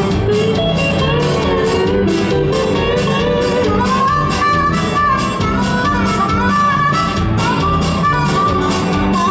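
Instrumental music with a steady beat and a moving melody line.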